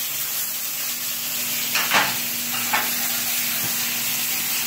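Steak sizzling in a frying pan on a gas burner: a steady hiss, broken by two short knocks about two seconds in.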